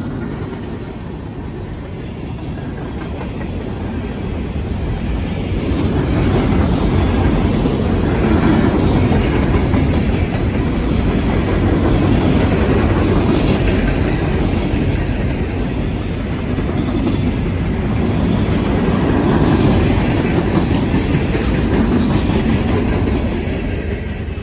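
Cars of a freight train rolling past, steel wheels clattering over the rail joints. The clatter grows louder about five seconds in and then holds steady.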